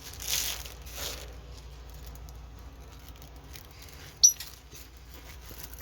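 Soft rustling of a packaged kit being handled, twice near the start, then a single short, sharp high-pitched squeak about four seconds in.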